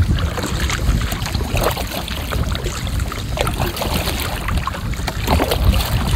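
Kayak paddle strokes churning and splashing the water, irregularly. Wind buffets the microphone with a steady low rumble throughout.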